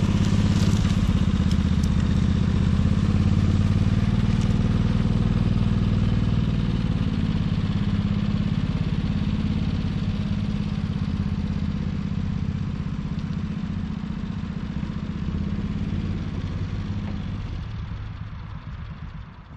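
John Deere Gator 6x4 utility vehicle's engine running as it tows a log away along a dirt trail, fading steadily as it moves off and dropping away near the end.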